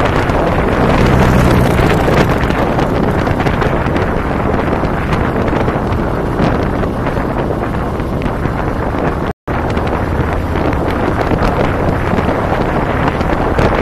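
Heavy wind buffeting on the microphone of a camera riding on a moving motorcycle, with the low steady running of the cruiser motorcycles' engines beneath it. The sound drops out completely for an instant about nine seconds in.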